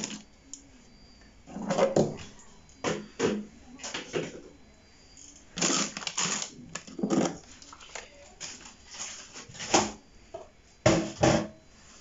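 Items being taken out of a fridge's freezer compartment: a plastic food bag rustling and things knocking against the shelves in a string of short, irregular rustles and knocks.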